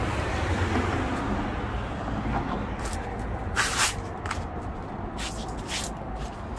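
Street traffic running steadily, with a short sharp hiss about three and a half seconds in and a few faint ticks after it.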